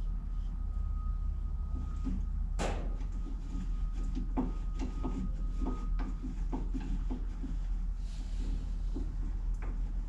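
Metal parts of a Craftsman lathe carriage knocking and scraping as a back piece is worked into place by hand: one sharp clank about two and a half seconds in, then a run of small knocks. A steady low hum runs underneath.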